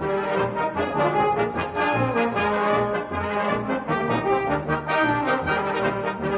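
British-style brass band playing an up-tempo piece, the full ensemble sounding together with a bouncing rhythm in the low brass.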